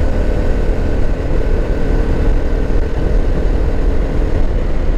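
Motorcycle engine running steadily while riding at road speed: a steady low rumble with a faint held tone.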